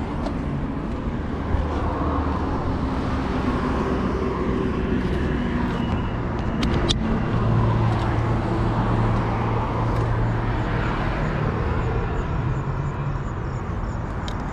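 Steady road traffic noise, with a vehicle engine passing by in the middle and a single sharp click just before it.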